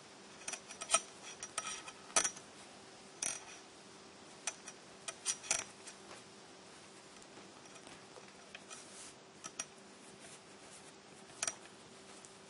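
Metal knitting needles clicking and tapping together at irregular intervals as stitches are knitted two together, the clicks most frequent in the first half. A faint steady hum runs underneath.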